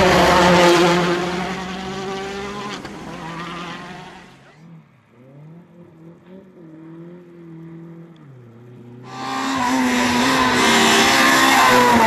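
Rally car engines at full throttle, in three cuts. First a Citroën DS3 WRC passes close and pulls away, its pitch falling. Then a distant car's engine is faint and muffled, revving up and down. About nine seconds in, another rally car comes in suddenly, loud and at high revs.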